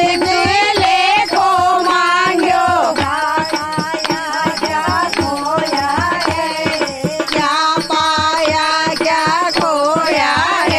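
Women singing a Hindi devotional folk song (bhajan), with a hand-played dholak drum and hand clapping keeping a steady beat.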